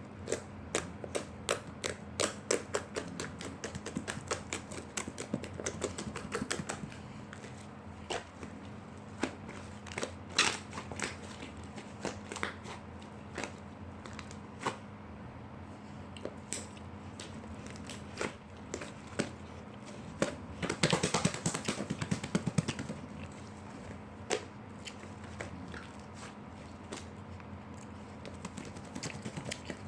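Slime being squeezed and pressed by hand, giving off irregular sharp clicks and pops, with a quick dense flurry of clicks about two-thirds of the way through. A faint steady hum runs underneath.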